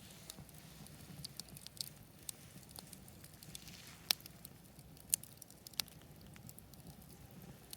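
Campfire crackling: irregular sharp pops and snaps of burning wood, a few louder ones about four, five and six seconds in, over a soft steady hiss.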